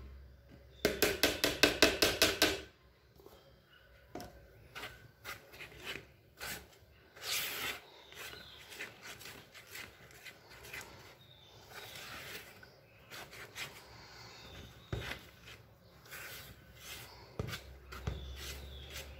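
A quick run of sharp, evenly spaced taps for about two seconds, as the plastic tub is knocked against the pan to empty out the cornstarch, followed by a silicone spatula scraping and knocking around the pan while stirring the cornstarch into the batter.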